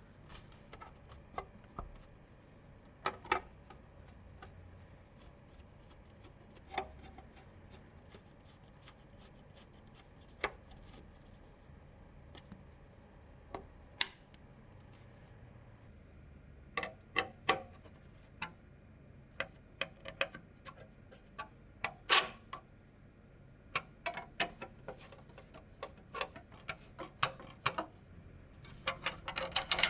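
Scattered sharp clicks and light taps of computer parts being handled and fitted, few and far apart at first, then coming more thickly over the last dozen seconds.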